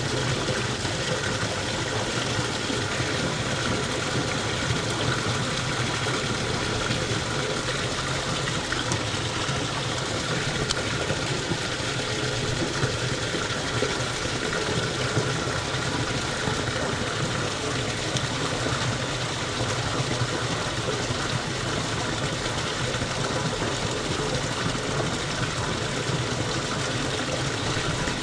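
Water flowing steadily through a small irrigation channel, a continuous rushing noise with no breaks.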